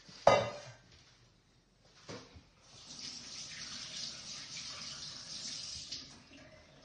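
A sharp knock just after the start and a softer thump about two seconds in, followed by about three seconds of steady running water that stops fairly suddenly.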